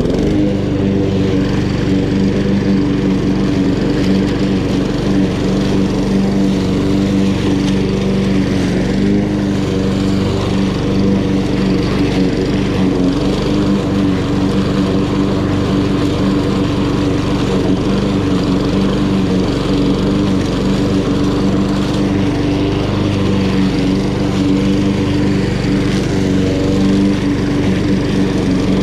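Honda HRN216 walk-behind lawn mower, its GCV170 single-cylinder four-stroke engine running steadily at constant speed while mowing grass.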